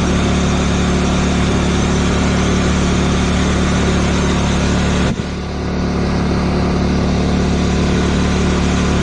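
Briggs & Stratton Power Smart Series inverter generator's small single-cylinder engine running steadily with no load on its first run. About five seconds in there is a brief dip in level before it settles back.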